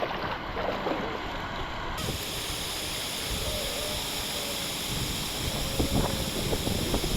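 Steady rush of river water flowing past, with a few light knocks and clicks from handling near the start and again near the end.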